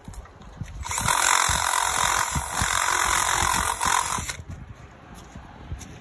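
Cordless drill running under load for about three seconds, enlarging a bolt hole for a seat-belt mount on the go-kart.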